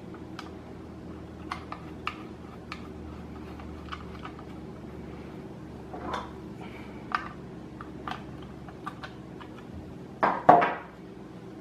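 Scattered small clicks and clinks of screws being driven by hand into a drive sled to hold a 2.5-inch SSD, with a louder pair of knocks about ten seconds in.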